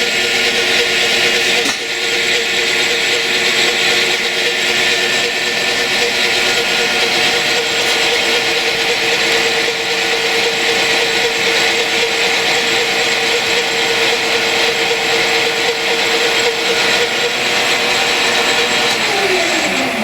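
Metalworking machine tool running at speed with a steady whine over a broad mechanical rush, then winding down near the end: the whine falls in pitch and stops as the machine is switched off.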